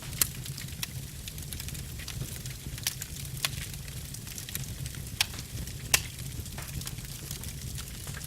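Wood fire burning in an open fireplace: a steady low rumble of flame with irregular sharp crackles and pops, the loudest pops just after the start and about six seconds in.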